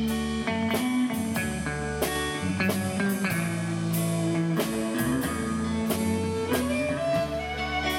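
Country band playing an instrumental passage: a hollow-body electric guitar picking the lead over electric bass and a steady drum beat.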